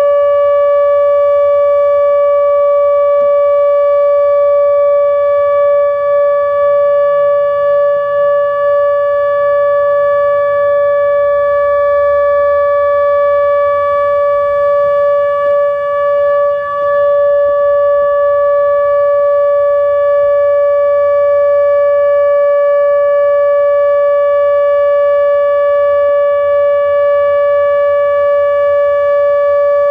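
ATI HPSS-32 electronic outdoor warning siren sounding its steady alert signal, a single loud, unwavering tone with overtones during a test of the nuclear plant siren system.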